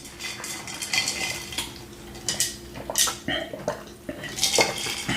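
Forks clinking and scraping against dishes while eating, in irregular sharp clicks.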